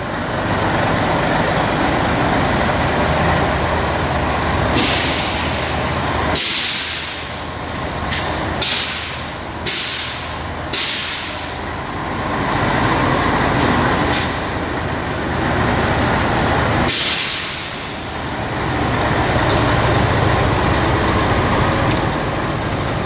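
Scania 113 truck's air suspension valves venting compressed air: about ten hisses, some lasting about a second and some brief, mostly between about five and twelve seconds in and one more near eighteen seconds. Under them the diesel engine runs steadily.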